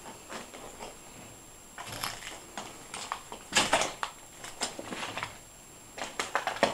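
Irregular crunching and crackling of broken plaster and rubble, in short clusters, loudest about halfway through and again near the end.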